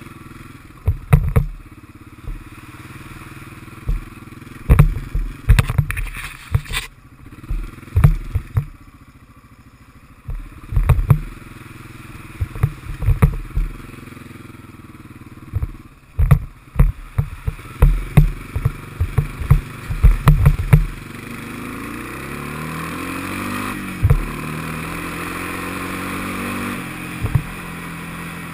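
Honda FourTrax ATV engine running at a low, steady speed, with frequent loud knocks and clatter as the quad jolts along a rough, puddled trail. After about twenty seconds the knocking mostly stops and the engine speeds up, its pitch rising, as a hiss grows louder.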